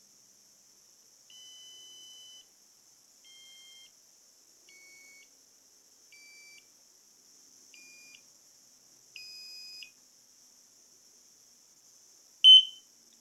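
Breadboarded fridge-door alarm buzzer giving seven separate steady high beeps, about a second apart. The alarm is being turned down by 10k resistors in series, from six resistors to none: the first six beeps are faint and grow louder overall, and the seventh, near the end, with no resistor, is far louder.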